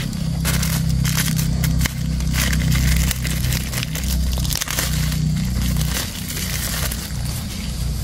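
Thin plastic bag crinkling and rustling in a run of irregular crackles as it is pulled and twisted over a foam-netted fruit, busiest in the first half, with a steady low hum underneath.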